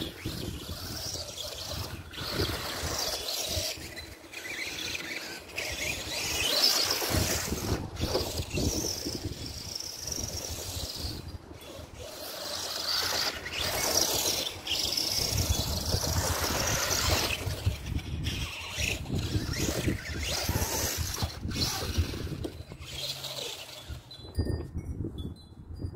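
Arrma Granite 4x4 RC truck being driven hard: its electric motor whines up and down in pitch as it accelerates and slows, with the tyres scrabbling over dirt and grass.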